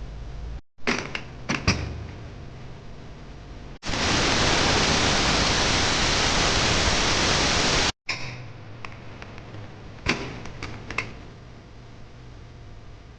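A loud, steady hiss lasting about four seconds that starts and stops abruptly, with a few sharp clicks and knocks before and after it.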